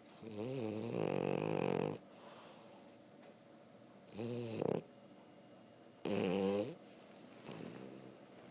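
Dog snoring in its sleep: three loud, wavering snores, the first about two seconds long, and a fainter one near the end.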